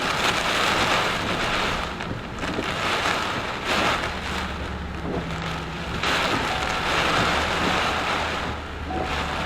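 Heavy rain and strong wind in a thunderstorm, a loud rushing noise that swells and eases in gusts, with wind buffeting the microphone. A low steady hum joins about five seconds in.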